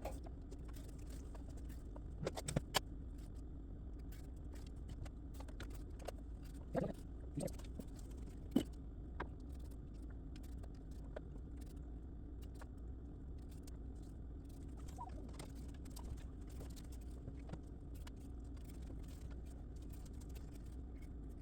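Vegetable peeler scraping carrots: irregular light scrapes and clicks, with a few louder knocks, over a steady low hum.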